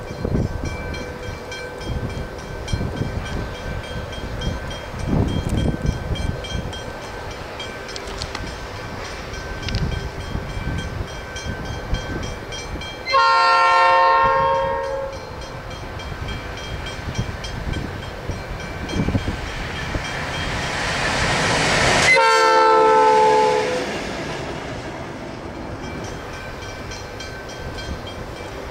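Pacific National X37, an EMD 16-645E Roots-blown diesel locomotive running light engine, approaching and passing: its engine grows louder to a peak about 22 seconds in, then fades away. It sounds two long horn blasts, one about 13 seconds in and one as it passes, the second dropping in pitch as the locomotive goes by.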